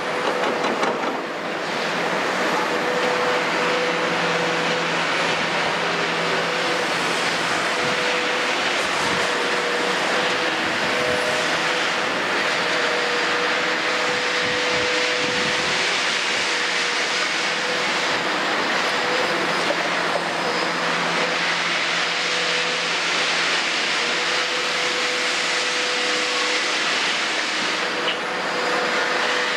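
Kobelco SK350NLC hydraulic excavator running under load, its diesel engine and hydraulics working steadily with a steady whine as it digs soil and swings to load a dump truck.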